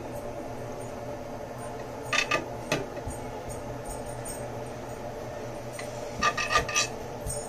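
Metal kitchen knife clinking against a glass baking dish while cutting cake: a few sharp ringing clinks about two seconds in, then a quicker cluster of clinks near the end, over a steady low hum.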